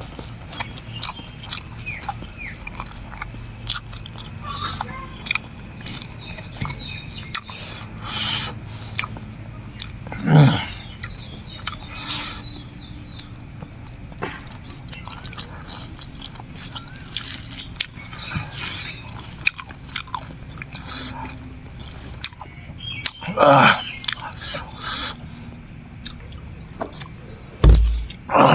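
Close-miked eating: a person chewing and biting food, with many short wet clicks and smacks, two louder mouth noises about ten and twenty-three seconds in, and a low thump near the end.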